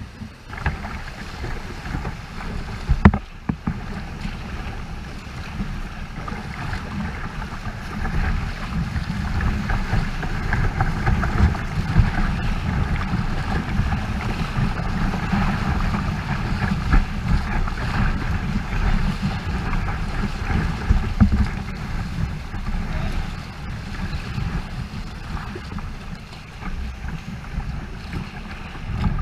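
Whitewater rushing and splashing close around a kayak running a rapid, with low buffeting rumble on the microphone. A single sharp knock about three seconds in; the water grows louder through the middle as the boat goes through the waves, then eases.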